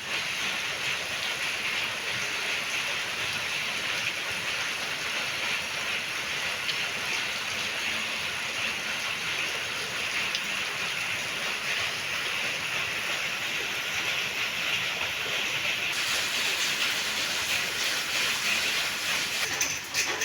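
Steady rainfall: an even hiss that grows a little brighter and sharper about three-quarters of the way through.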